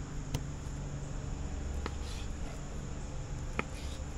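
Fillet knife cutting bluefish on a plastic cutting board, the blade knocking the board in three short sharp clicks spread over a few seconds, over a steady low background hum.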